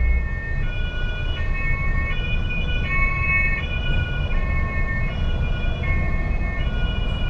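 German police car's two-tone siren, alternating between two pitches about every two-thirds of a second, over the steady low drone of the truck cab.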